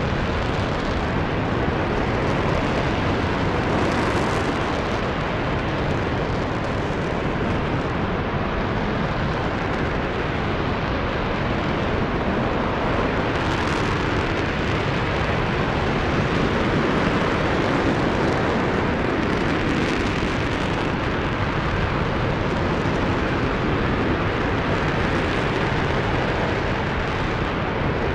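RS-25 liquid-hydrogen/liquid-oxygen rocket engine firing at full run during a static test on a test stand: a loud, steady, unbroken rush of noise that holds at the same level throughout.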